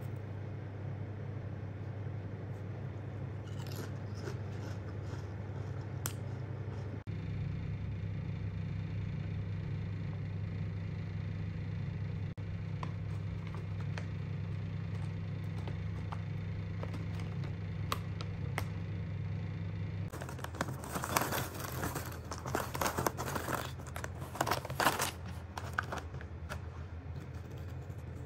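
A plastic snack bag crinkling and crackling as it is handled, in a dense spell starting about two-thirds of the way in, over a steady low hum.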